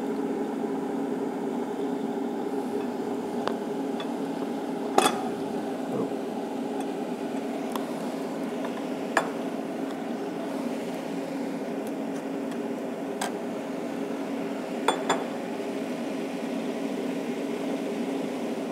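Steady mechanical hum with several sharp metallic clinks, the loudest about five seconds in and two close together near fifteen seconds, as stainless steel parts and tools are handled between welds.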